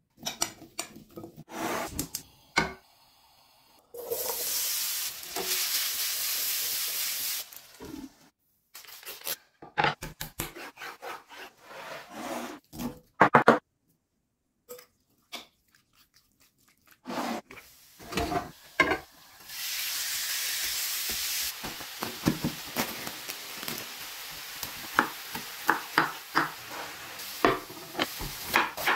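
Kitchen prep sounds in short takes: a metal spoon clinking and scraping in a glass mixing bowl as diced potatoes and chicken pieces are seasoned and stirred. Twice there is a few seconds of sizzling as food fries in hot oil, and near the end a quick run of sharp taps from a knife chopping on a wooden board.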